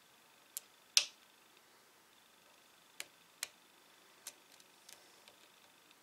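Lock pick and tension wrench working a padlock's pin-tumbler cylinder: a handful of faint, sharp metallic clicks at uneven intervals, the loudest about a second in.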